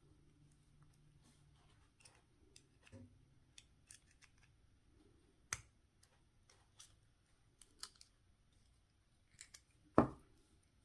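Scattered light metallic clicks and taps of a hook pick working the small spring-loaded tumblers out of a 2007 Ford Expedition ignition lock cylinder, with a louder knock near the end.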